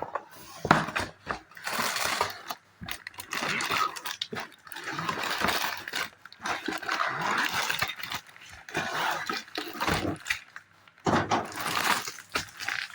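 A Lego set's cardboard box being opened by hand: cardboard tearing and packaging rustling in irregular crinkly bursts, with small clicks and short pauses.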